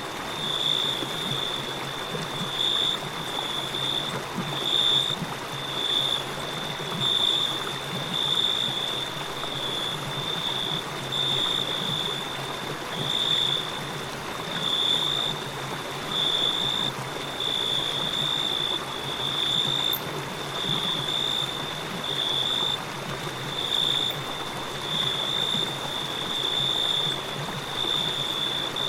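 Steady rush of river water with crickets chirping in a continuous high-pitched trill that swells and fades in regular pulses, roughly once a second.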